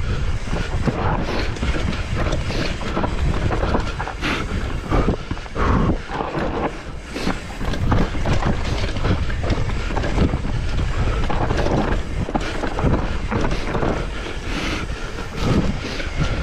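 Mountain bike riding a rough trail: steady tyre noise with frequent rattles and knocks from the bike over bumps, and wind rumble on the microphone.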